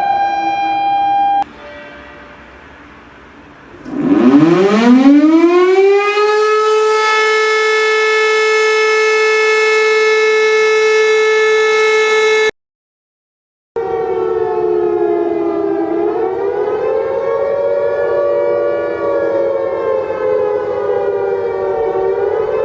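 A run of civil-defence air-raid siren recordings cut together. One siren winds up from a low pitch to a high, steady tone and holds it, then cuts off abruptly. After about a second of silence another siren sounds with a slowly wavering pitch.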